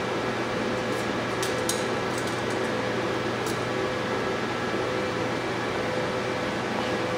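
Steady hum of laboratory machinery with a few faint steady tones in it. Several light clicks come about one to one and a half seconds in and once more around three and a half seconds in, as a sample holder is handled at the microscope's load lock.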